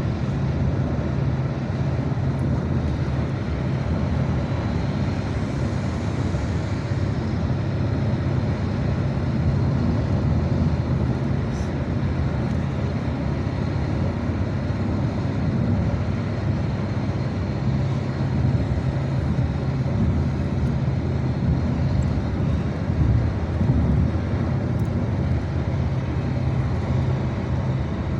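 A steady low engine drone that holds level throughout, with no break or change in pitch.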